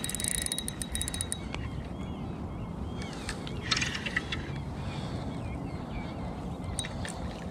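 Spinning reel's drag clicking rapidly for about a second and a half as a hooked sea trout takes line, over a steady low rumble of wind on the microphone. A brief hiss about four seconds in, and faint chirps now and then.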